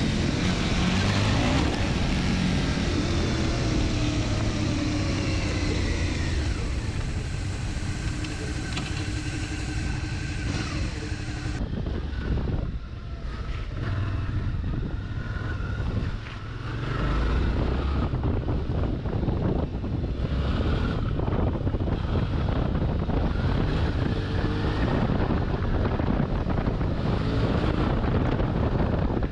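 Suzuki V-Strom 650's 645 cc V-twin engine under way, its pitch rising and falling as it revs through the gears, with wind on the microphone. About halfway through the engine drops back briefly, then pulls strongly again.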